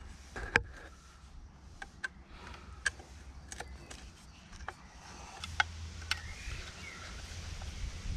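Scattered light metallic clicks and knocks, about eight of them, as the rotator's worm-drive motor, housing and tools are handled and fitted together, over a faint low rumble.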